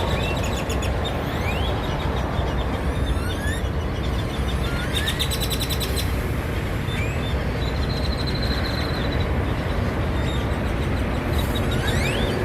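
Great-tailed grackles calling: short rising whistles again and again, with a harsh clicking rattle about five seconds in, over a steady low rumble.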